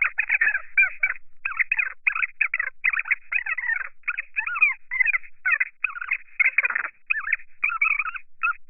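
Women's voices in a phone conversation played back fast-forward: sped-up speech turned into quick, unintelligible high chatter with rapid rises and falls in pitch and short breaks between phrases.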